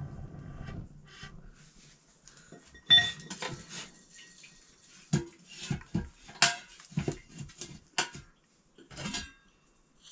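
Metal dishes and utensils clattering and clinking in a string of knocks. The loudest comes about three seconds in, with a brief metallic ring.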